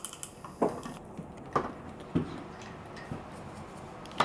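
A few light, irregularly spaced clicks and knocks, four or five in all, over quiet room hiss.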